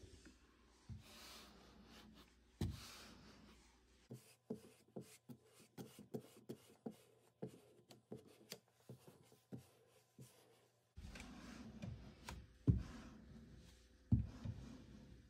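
Faint scraping of a plastic squeegee drawn across wet frosted window film on glass, pushing out bubbles. A string of light clicks and taps comes in the middle, with a few louder knocks.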